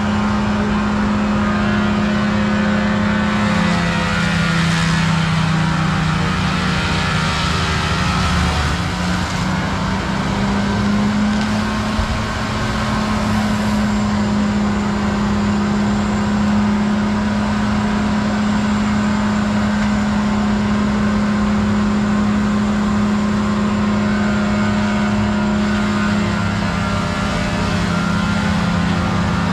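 Heavy diesel machinery engine running steadily under load; its pitch sags a few seconds in and climbs back to speed a few seconds later, then holds steady.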